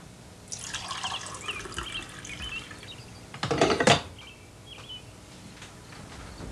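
Coffee poured from a glass carafe into a mug for about two and a half seconds. A little before four seconds in comes a sharp clunk, the loudest sound, as the carafe is set back on the drip coffee maker's warming plate. Faint bird chirps run behind.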